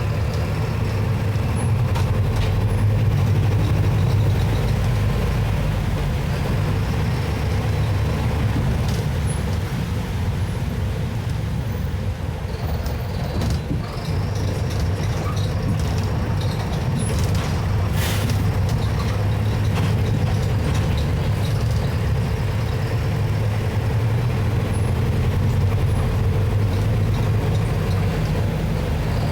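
Mercedes-Benz OF-1721 Bluetec 6 bus's four-cylinder diesel engine running steadily with a low drone. A short hiss comes about two-thirds of the way through.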